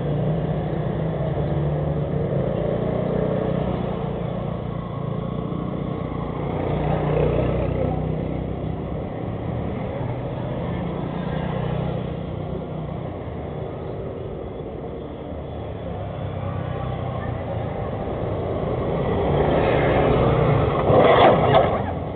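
Street traffic heard through a security camera's microphone: car and motorbike engines and tyres swelling and fading as vehicles pass close by on a narrow road. Near the end comes a louder burst of sharp knocks and clatter as a motorbike goes down on the road.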